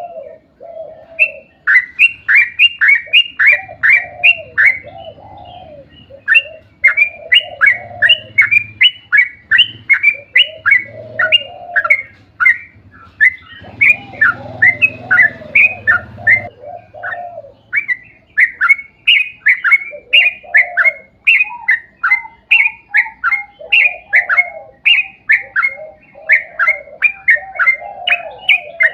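Yellow-vented bulbul (trucuk) singing a long rapid roll ('ropel panjang'): fast runs of sharp, falling whistled notes, about four or five a second, with a lower warbling phrase beneath.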